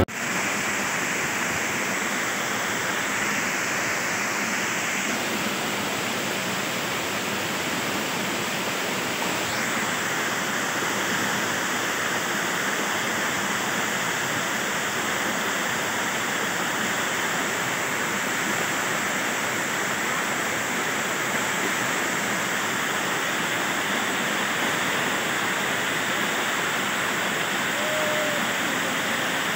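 Small waterfall cascading over rocks into a stream: a steady rush of water.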